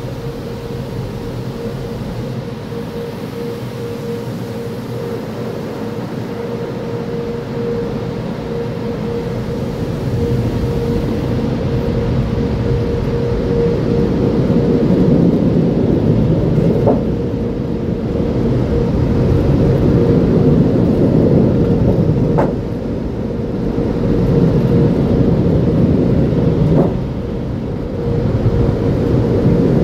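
Automatic tunnel car wash heard from inside the car: a steady rumble with a constant hum. It grows louder about ten seconds in as the car reaches the overhead dryer blowers, and stays loud, with two short dips near the end.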